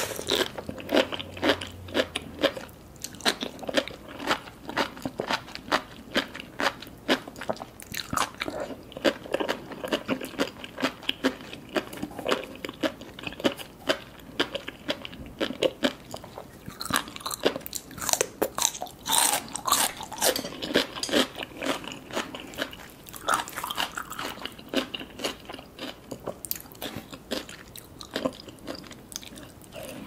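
Close-miked eating with no talking: wet chewing and popping of sea grapes, with many short crisp bites and crunches. The crunching is sharpest and densest a little past the middle, when a crisp raw green vegetable slice is bitten.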